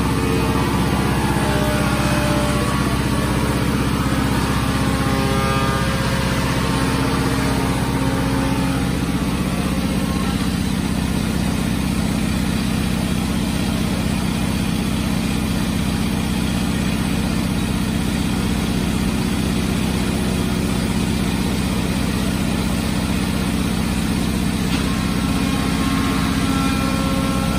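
Industrial machinery running with a steady low hum and drone. Several higher steady whining tones sound over it during the first several seconds and return near the end.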